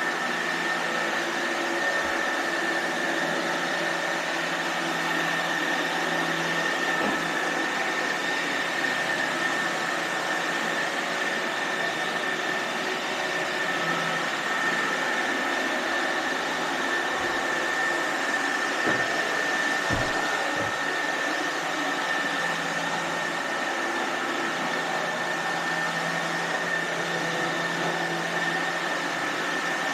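iRobot Roomba robot vacuums running steadily, a constant motor and brush hum with a high whine, broken by a few soft knocks.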